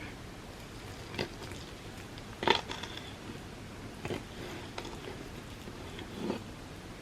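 Close-miked eating of Dubai chocolate crepes: five short, separate bite and chewing sounds, the loudest about two and a half seconds in, over a steady low hiss.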